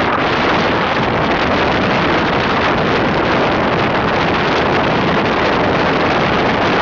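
Steady rush of wind on the microphone of a camera riding on a moving motorbike, mixed with the bike's running and road noise, even throughout.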